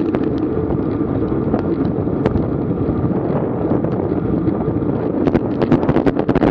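Wind buffeting the microphone of a bike-mounted GoPro during a road race, a loud steady rumble, with scattered sharp clicks that come thicker about five seconds in.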